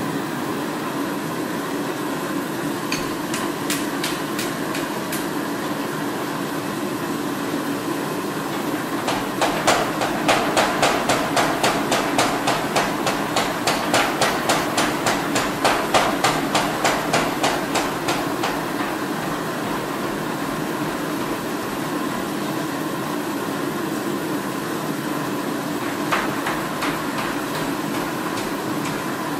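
Hammer blows on a red-hot knife blade being forged on the anvil: a few strikes, then a long, fast, even run of about three to four blows a second lasting several seconds, then a couple more near the end. Under the blows, the forge gives a steady hum.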